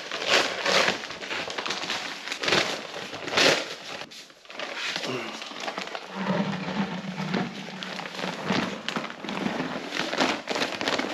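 Crinkling and rustling of a bag of powdered drywall compound and a bucket being handled, with a few louder knocks in the first few seconds and a short low hum about six seconds in.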